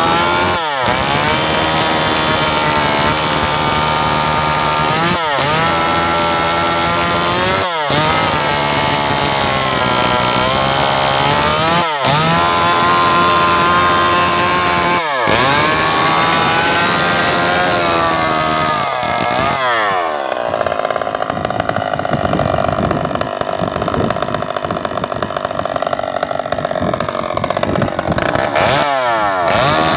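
Stihl MS 381 two-stroke chainsaw running at high revs while cutting into a rain-tree log. The engine speed dips briefly and picks back up several times, then holds steady under load for the last third.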